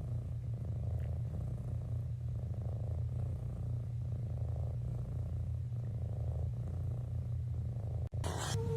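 Domestic cat purring, a steady low rumble that stops abruptly near the end.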